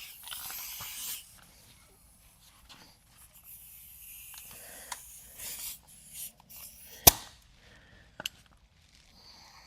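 Handling noises from work on a car's rear wheel hub: scattered rustles and small clicks, with one sharp click about seven seconds in and a lighter one a second later.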